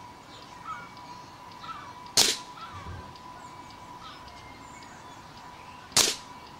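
Two shots from an Air Arms S400 Classic pre-charged pneumatic air rifle, each a sharp crack, about four seconds apart. Birds chirp faintly in the background.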